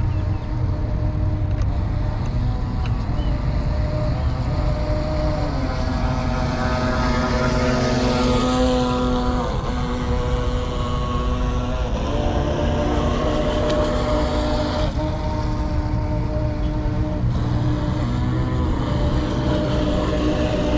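Heng Long Atlantic RC yacht's electric motor and propeller whining as the boat runs on the water, the pitch rising and falling with throttle and passes, loudest about eight seconds in when the boat comes close. A steady low rumble runs underneath.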